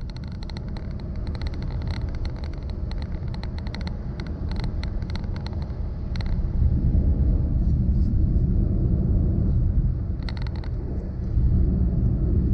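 Steady low road and engine rumble of a moving vehicle, with quick runs of small ticking rattles through the first half and again briefly near the end.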